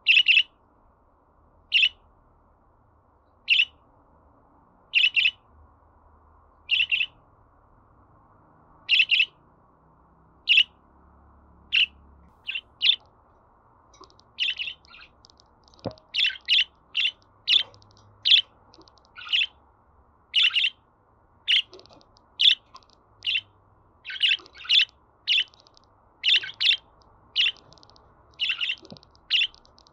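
Budgerigar chirping: short, sharp chirps, at first one every second or two, then coming faster, about two a second, from about halfway.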